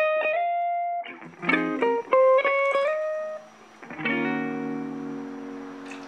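Background music: a plucked-string melody of short notes, settling into a held chord about four seconds in.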